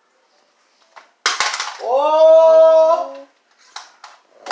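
A person's voice shouting one long drawn-out call, held for about a second and a half after a short rush of breath or noise, followed by a couple of short breathy sounds near the end.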